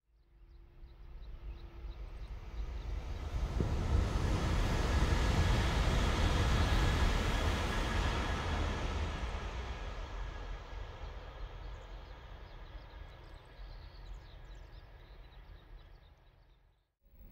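Kyushu Shinkansen N700 series (7000/8000 type) high-speed train passing at speed: its rush of air and rail noise builds over about five seconds, peaks, then slowly fades as it runs away into the distance, cutting off abruptly near the end.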